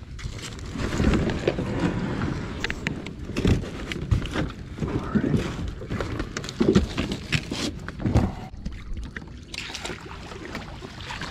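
Someone climbing onto and settling into a kayak: irregular low thumps and knocks on the hull, with rustling and clicks from gear being handled.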